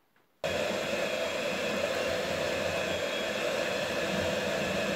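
Electric hand mixer running steadily, its beaters churning carrot cake batter in a glass bowl. The motor sound starts abruptly about half a second in.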